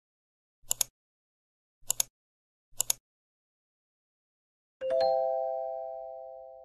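Intro animation sound effects: three short double clicks about a second apart, then a bell-like chime about five seconds in that rings on and fades away over some two seconds, marking the loading bar's completion.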